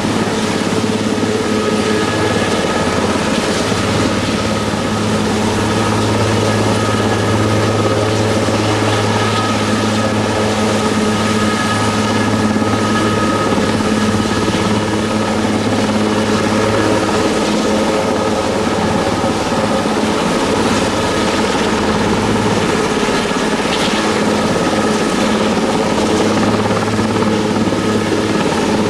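Aerospatiale AS332L1 Super Puma helicopter hovering low, its main rotor and twin turboshaft engines running steadily, with a constant whine over the rotor noise.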